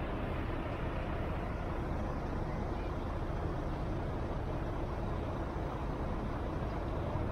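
Steady road traffic on a busy city avenue, a continuous wash of passing cars and buses with no single vehicle standing out.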